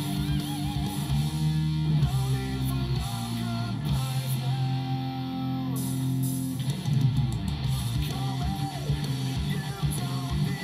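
Heavy rock song playing, led by electric guitar.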